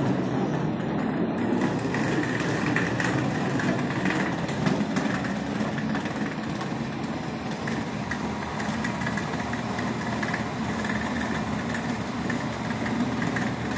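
Wheeled suitcase rolling along a concrete floor, a steady rumble with small rattles and clicks, mixed with walking footsteps.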